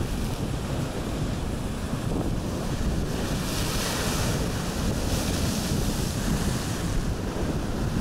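Ocean surf breaking against a lava-rock shoreline, with wind buffeting the microphone in a steady low rumble. The hiss of the surf grows louder about halfway through as a wave breaks.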